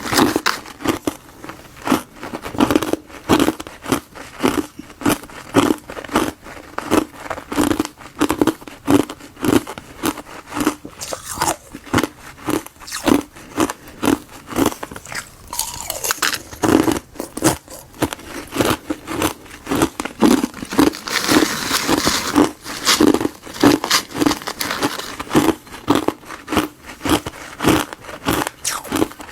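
Granules of frozen tartary buckwheat and gardenia tea ice being bitten and chewed, with crisp crunches coming steadily at about two a second.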